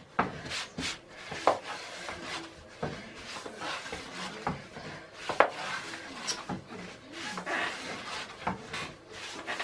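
Rolling pin rolling out börek dough: irregular rubbing strokes mixed with sharp knocks, roughly one or two a second.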